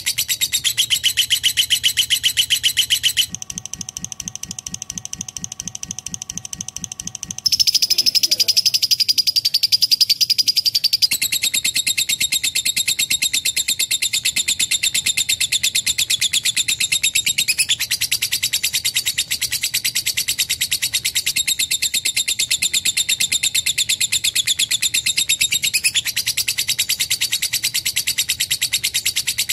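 Lovebird chattering in a long, fast, unbroken trill of high chirps. From about three to seven seconds in it drops to a quieter, lower-pitched trill, then comes back loud and high for the rest.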